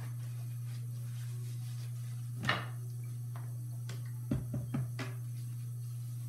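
Brief handling noises over a steady low hum: one rustle, then about four seconds in a quick run of four or five light knocks and taps.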